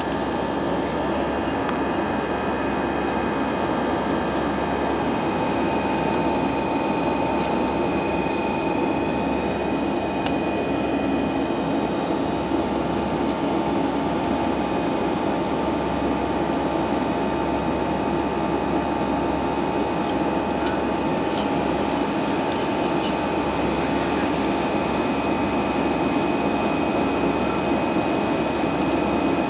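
Airbus A320 cabin noise during the climb after takeoff: a steady drone of the jet engines and rushing air heard from inside the cabin, with a thin steady whine running through it.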